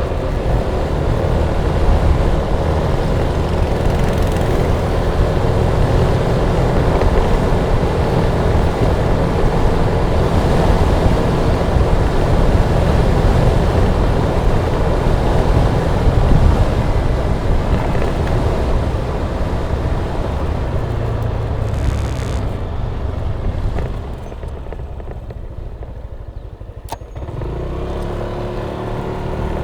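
Yamaha Tricity 155 scooter-trike being ridden: its single-cylinder engine runs steadily under wind and road noise. About three-quarters of the way in the noise drops for a few seconds, a single click sounds, and a steady engine note returns.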